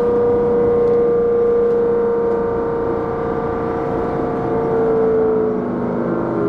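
Traction motor of an MBTA trackless trolley bus heard from inside the moving bus: a steady electric whine with a lower hum and road rumble underneath, dropping in pitch about five seconds in as the bus slows.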